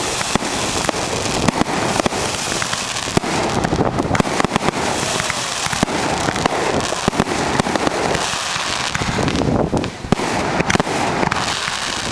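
Fireworks going off in a dense, continuous barrage of bangs and crackles, with a short lull just before the end.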